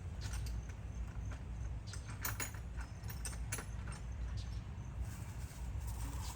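Scattered metallic clicks and clinks of hand tools, a ratchet with socket extension working in the engine bay, at irregular intervals over a steady low rumble.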